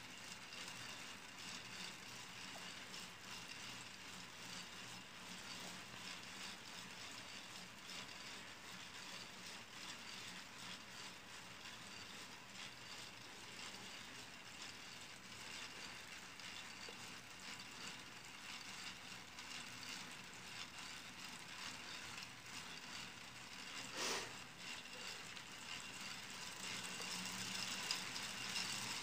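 Plastic K'nex gear train of a hand-cranked orrery turning, a steady clicking and rattling of gear teeth and rods, with one sharper knock about 24 seconds in.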